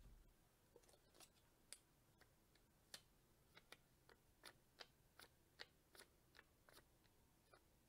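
Near silence broken by faint, irregular small clicks and taps, about two or three a second.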